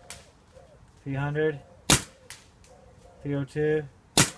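DLX Luxe 2.0 electronic paintball marker fitted with a Pooty bolt, firing two single shots about two seconds apart, each a sharp, loud pop. The marker is being chronographed at about 300 feet per second.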